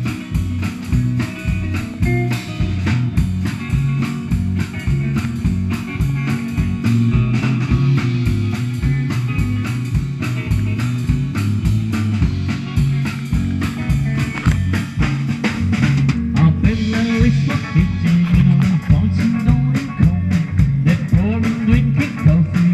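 Live amplified band playing a driving rock-and-roll/blues number: electric guitars over a drum kit keeping a steady beat.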